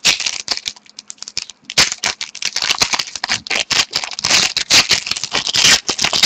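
Foil wrapper of a hockey trading-card pack crinkling and tearing as it is opened, with quick clicks of cards being handled.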